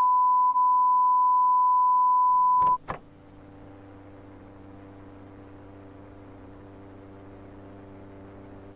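Steady colour-bar test tone, one unbroken beep that cuts off with a couple of clicks nearly three seconds in. A quiet, steady low electrical hum with faint hiss follows.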